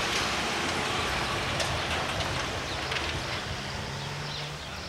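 Mexico City street noise: a steady wash of traffic with a few faint clicks, and a low hum for about a second near the end.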